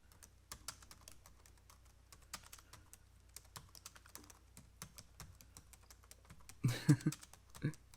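Typing on a computer keyboard: quick, irregular key clicks throughout, with a brief louder burst about seven seconds in.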